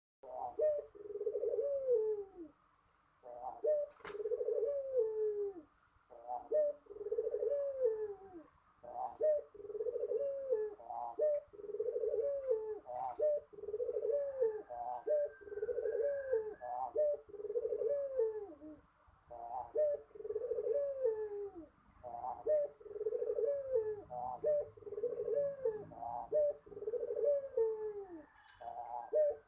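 A derkuku puter dove cooing over and over, one rolling coo about every two seconds, each ending in a falling note. A single sharp click sounds about four seconds in.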